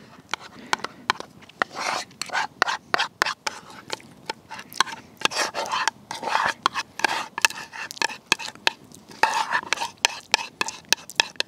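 A metal spoon scraping and tapping against a bowl and a small stainless steel pan as thick pumpkin pie filling is spooned into a pie crust: a run of short scrapes and sharp clicks.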